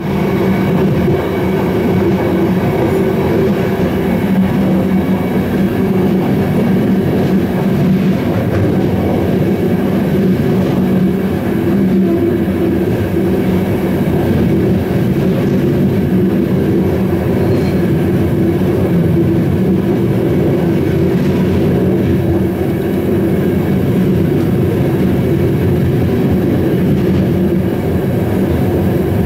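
Moving passenger train running along the track: a steady rumble of wheels on the rails with a constant low drone.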